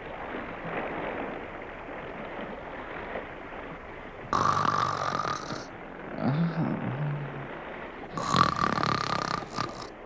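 Steady sea wash, then a cartoon sleeper's snoring: two loud rasping in-breaths about four seconds apart, each with a thin whistle in it. The first is followed by a lower, wavering out-breath.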